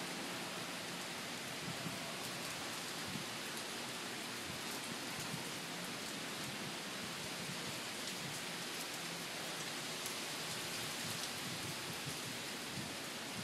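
Steady hurricane rain falling, an even hiss with faint scattered drop ticks.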